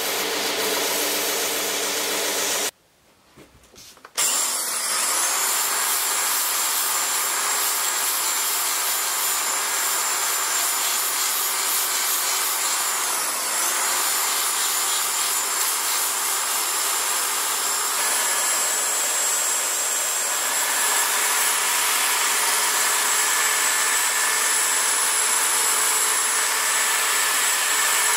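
Belt sander running while an oak knife handle is sanded against the belt, with a steady noise. It drops out briefly about three seconds in, then a narrow-belt power file runs steadily with a faint high whine as it shapes the curved oak handle.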